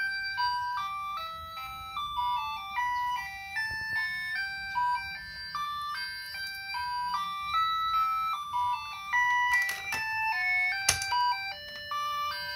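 A toy robot's electronic speaker playing a simple beeping tune, one note at a time, a few notes a second, like an ice-cream-van jingle. Two sharp clicks come near the end.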